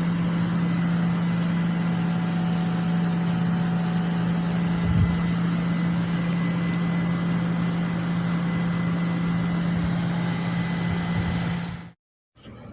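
Vehicle engine idling with a steady low hum, stopping abruptly near the end.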